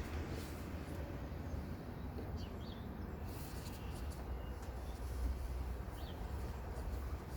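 Mercedes OM651 four-cylinder diesel idling with a low steady rumble, broken by a few short rising chirps: the idle chirping that the uploader says affects nearly all OM651s with the two-stage turbocharger.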